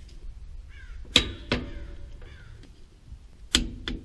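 Click-type torque wrench tightening the axle retaining nuts to 50 ft-lb: three sharp metallic clicks, about a second in, again shortly after, and near the end.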